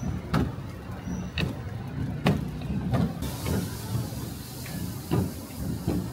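Irregular sharp knocks of cooking utensils on a hard surface, roughly one a second, over a steady low rumble.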